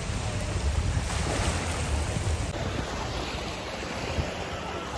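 Small waves washing onto the shore, with wind rumbling on the microphone.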